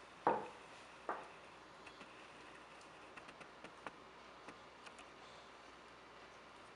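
Two knocks as a stoneware mug is set down on a wooden desk, the first the louder, then faint light ticks of a freshly smoothed steel fountain-pen nib writing short test strokes on paper.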